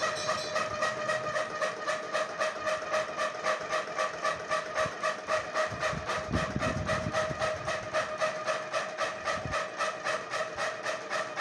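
Homemade semolina sieve machine driven by a ceiling-fan motor running, the shaking sieve giving a fast, even rattling rhythm over a steady hum. A brief low rumble comes about six seconds in.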